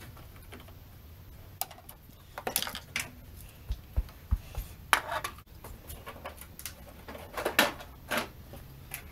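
Irregular clinks, clicks and knocks of hand tools and metal car parts being handled, over a low steady hum.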